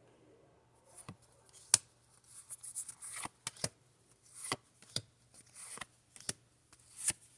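Pokémon trading cards and their packaging being handled and flipped through: short crisp rustles and a scatter of sharp clicks, about a dozen over several seconds.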